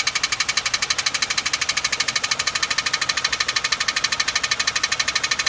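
Loud, rapid, even mechanical ticking, about ten ticks a second, sharp and high-pitched, holding a steady rate.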